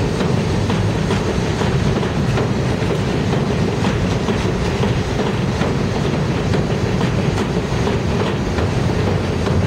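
NYC Subway R62A cars on a 1 train passing close by on elevated track: a steady rumble of steel wheels on rail, with clicks as the wheels cross rail joints.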